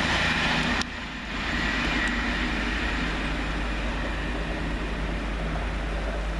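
Two Class 221 Super Voyager diesel-electric multiple units running through the station at speed: a steady rush of noise with a low hum, dropping abruptly about a second in, then going on steadily at a lower level.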